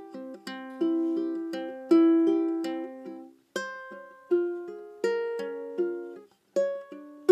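Solo ukulele playing a fingerpicked study built on one barre chord shape: plucked notes and chords, each ringing and fading before the next. The notes stop briefly twice, near the middle and again near the end.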